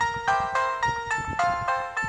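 A polyphonic ringtone melody playing from the K-Touch B2020 feature phone's loudspeaker: quick electronic notes in chords, about three or four a second.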